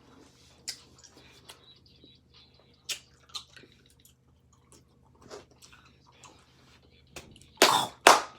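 Quiet chewing of chewy Hi-Chew candy, with faint mouth clicks and small crinkles. About a second before the end comes a run of loud, sharp noises, roughly two a second.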